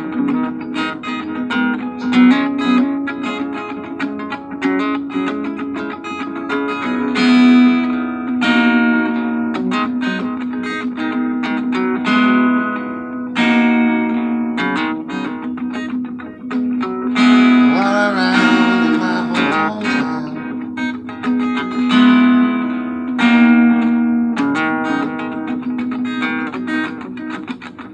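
Sunburst cutaway acoustic guitar being strummed and picked: chords are struck and left to ring in phrases, with a low note sounding through most of it.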